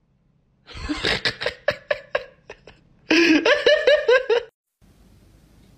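A person laughing: first a run of quick, breathy giggles, then a stretch of voiced, pulsing laughter that stops about four and a half seconds in.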